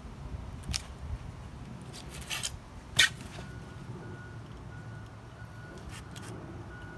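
Knife and carcass handling on a styrofoam cooler lid while an iguana's skin is scored: scattered sharp clicks and scrapes, the loudest a sharp snap about three seconds in, over a low steady rumble. From about halfway a faint high beeping comes and goes in the background.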